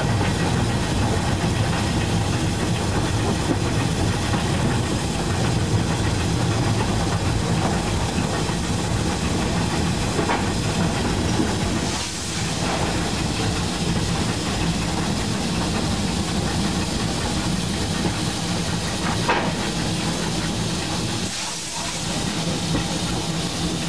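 Saddle tank steam locomotive on the move: a steady hiss of steam over the low rumble of the engine and its wheels on the rails.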